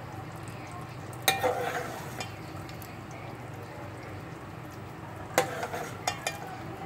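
A few sharp clinks, about a second in and again near the end, as a glass serving plate is shifted by hand on the table, over a steady low hum.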